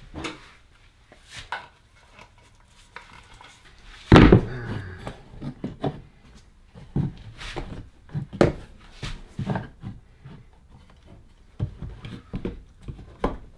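Sharpened flathead screwdriver cutting and scraping into a log by hand: a series of short, irregular strokes, the loudest about four seconds in.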